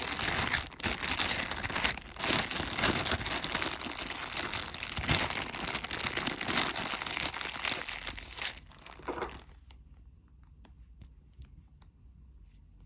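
Crinkling and rustling of items being handled up close, which stops about nine and a half seconds in, followed by a few faint light ticks.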